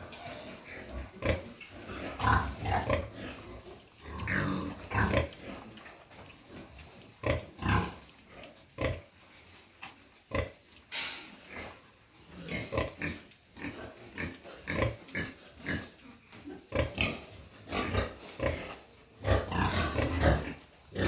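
Pigs, a farrowing sow with her newborn piglets, making short grunts and squeals at irregular intervals.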